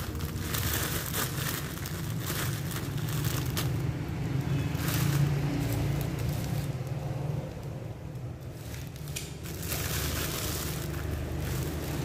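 Clear plastic bag crinkling and rustling as packaged Tết snacks are handled and unpacked, in irregular bursts that ease off for a couple of seconds in the middle. A steady low hum runs underneath.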